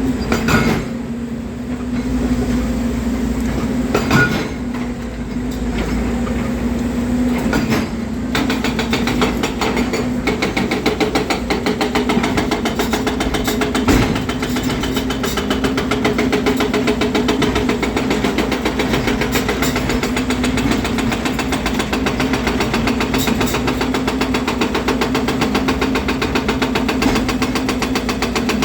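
Volvo EC300DL excavator's diesel engine running with a steady hum, with several sharp knocks in the first part. About a third of the way in, the running turns into a denser, even rapid pulsing.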